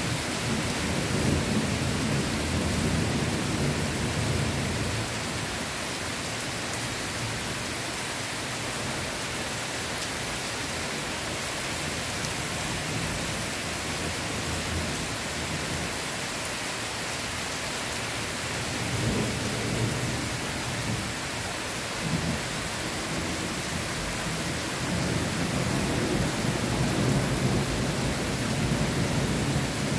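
Heavy downpour: rain pouring onto leaves, shrubs and grass as a steady, even hiss. Low rumbles swell under it in the first few seconds, briefly around two-thirds of the way through, and again over the last five seconds.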